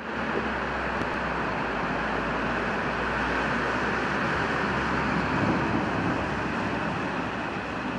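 Steady rushing hiss of heavy rain and floodwater, with a car driving through the flooded street; its low engine rumble fades about five and a half seconds in.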